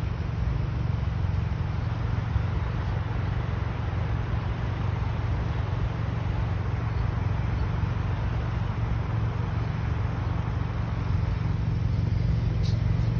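Steady noise of road traffic on a busy city street: a constant low rumble with hiss above it and no single vehicle standing out.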